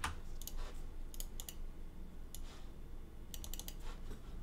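Faint computer keyboard typing: a few scattered keystrokes, then a quick run of several about three and a half seconds in, over a low steady hum.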